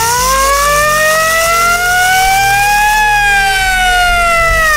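Hand-cranked Japanese WWII air-raid siren wailing, pretty loud: its pitch rises steadily to a peak about three seconds in, then starts to fall as the rotor slows.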